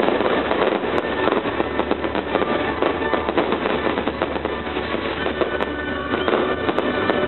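Fireworks display: continuous dense crackling and popping from bursting shells and fountains of sparks.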